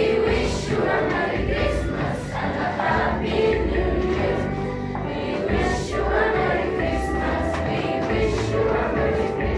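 A group of students singing a Christmas carol in English as a choir, over instrumental accompaniment with a steady bass and regular percussion hits.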